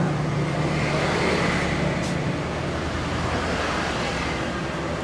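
Steady low rumble and hum of background noise, with a single faint click about two seconds in.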